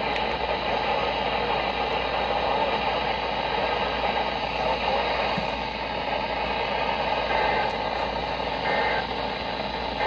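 Weather alert radio's small speaker giving steady crackling static with no voice over it.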